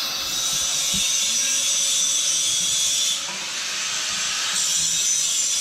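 Steel being cut or welded with a tool that throws sparks: a steady hiss that dips briefly a little past halfway.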